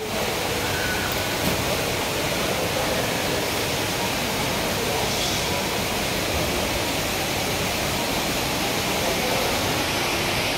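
Steady shopping-mall ambience: a constant, even hiss-like din, with a faint murmur of voices under it.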